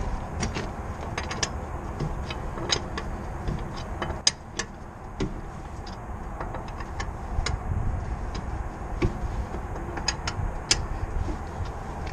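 Road and tyre rumble heard from a camera mounted in the wheel well of a BMW E46 325xi on the move, with irregular sharp clicks and knocks, the sharpest about four seconds in.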